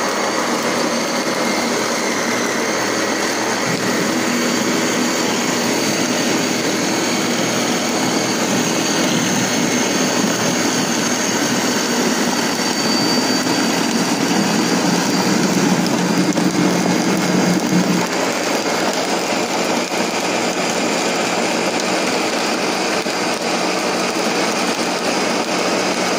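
Ninja Professional 1000-watt countertop blender running on medium speed, motor and blades whirring steadily through a thick smoothie. The low part of the sound swells for a few seconds just past halfway, then settles back.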